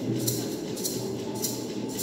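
Music: rhythmic jingling percussion over a low steady tone.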